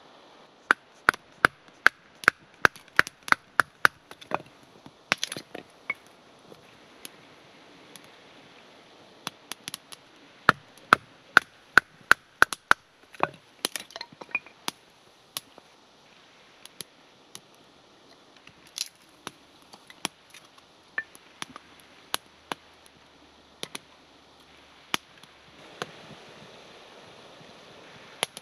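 A hand tool striking wood: quick runs of sharp blows, about three to four a second, in two bursts, with single strikes spaced out in between and toward the end.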